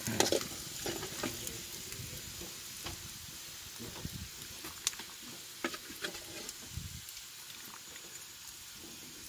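Hot oil sizzling in a wok as fried tempeh is ladled out, with scattered clicks and scrapes of the metal ladle against the wok. The sizzle is loudest at the start and slowly dies down.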